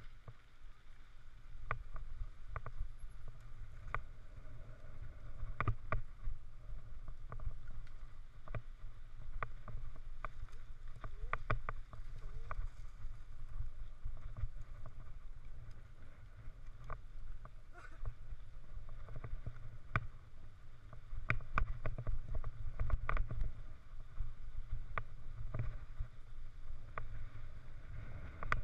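Wind rumbling on a helmet-mounted camera's microphone while riding a mountain bike along a dirt track. Scattered clicks and knocks come through it as the bike and camera jolt over the rough ground.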